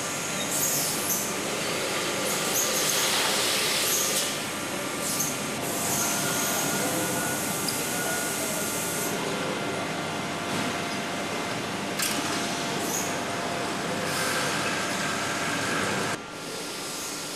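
Automated production-line machinery running: a steady mechanical din with a few faint steady tones and several short hisses of air, like pneumatic valves venting. The din drops a little near the end.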